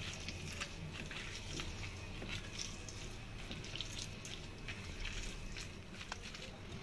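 Fish pieces being mixed by hand with wet spice paste, onion and oil in a steel bowl: irregular wet squelches and small clicks throughout.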